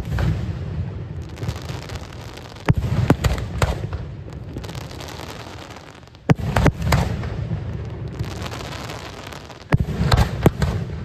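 Fireworks display: groups of sharp bangs about every three seconds, each group two or three reports in quick succession, followed by a long rolling echo.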